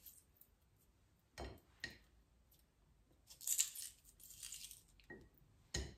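Knife work on peeled potatoes, cutting out the eyes: two dull knocks, a high scraping rasp midway, and a sharper knock near the end.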